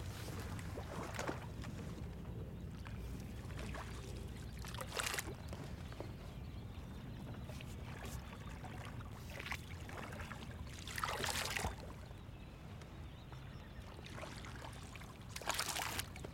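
Small flat-bottomed boat gliding over calm water: a steady low rumble of water along the hull, with swishing, trickling splashes three times, about every five or six seconds, as the boat is poled along.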